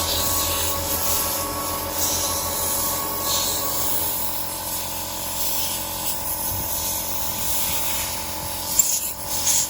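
Compressed air hissing from an air nozzle as a chainsaw is blown clean, in several louder surges, over a steady hum.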